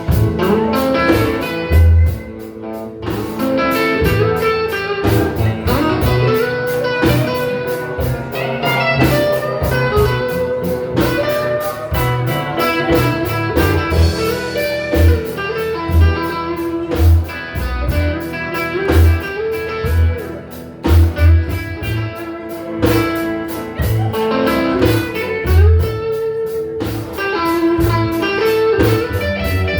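Live blues band playing an instrumental passage: electric guitar over bass and drums, with a kick drum thumping regularly underneath.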